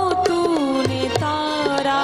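Hindu devotional bhajan music: a melody line held and gliding in pitch over a steady hand-drum rhythm with deep bass strokes.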